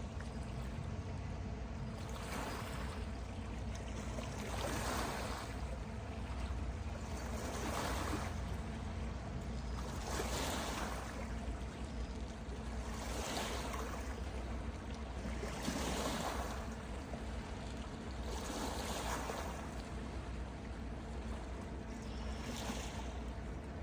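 Water washing in regular surges about every three seconds, over a steady low rumble.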